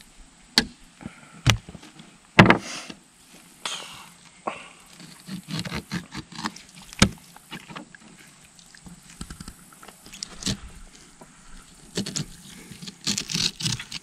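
Handling sounds of a catfish being skinned and filleted on a wooden plank table: scattered sharp knocks and taps of the fish, knife and pliers against the boards, the loudest about two seconds in and a quick cluster near the end, with soft scraping of the knife between them.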